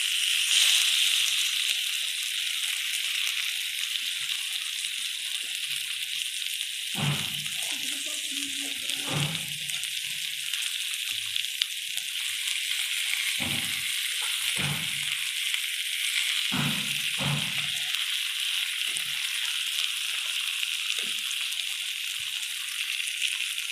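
Fish pieces shallow-frying in hot oil in a pan, a steady sizzling hiss, with a few short low knocks scattered through the middle.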